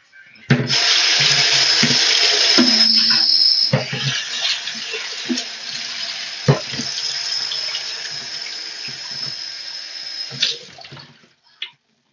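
Countertop blender running for about ten seconds as a smoothie is blended: a steady high whine and rush, loudest for the first three seconds, with scattered knocks from the contents, then it stops.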